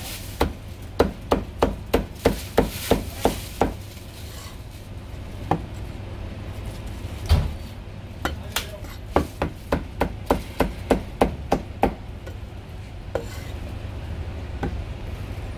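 Steel cleaver chopping marinated goose on a round wooden chopping block: two runs of quick, even chops about three a second, each a sharp knock. There is a pause between the runs with one heavier chop, and a steady low hum underneath.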